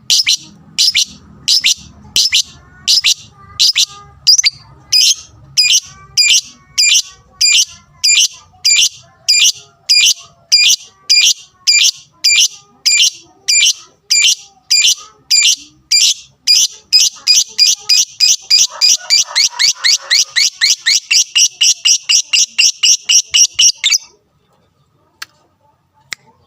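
Lovebird calling in loud, sharp repeated chirps, about two a second, speeding up into a fast run of chirps about two-thirds of the way through and then cutting off suddenly. It is a 'fighter' lovebird's song of the kind played to provoke other lovebirds into singing.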